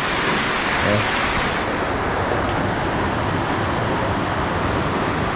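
Steady rain falling, an even hiss of heavy rainfall. The highest part of the hiss thins out about a second and a half in.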